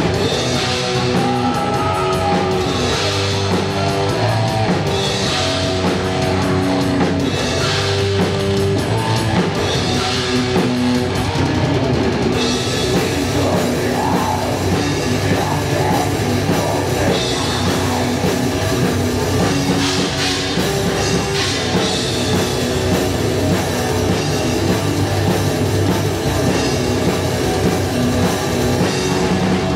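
Black metal band playing live: distorted electric guitar, bass and drum kit. In the first part, held guitar notes ring out with drum and cymbal accents every two to three seconds; about twelve seconds in, the band turns denser and heavier.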